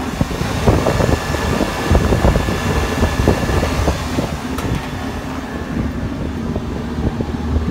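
Air-conditioning unit running, its compressor and condenser fan giving a steady hum, with scattered knocks and rustles over the first four seconds.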